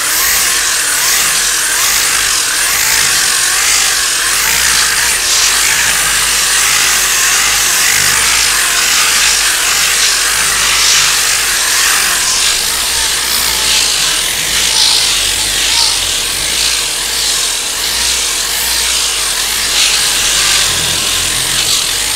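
Abrasive paper sanding cured body filler (Bondo) on a truck body: a steady, scratchy hiss with repeated strokes.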